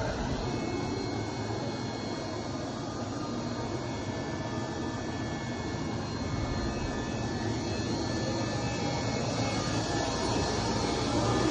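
Machinery running steadily: an even mechanical hiss and hum with a thin high whine over it, growing slightly louder near the end.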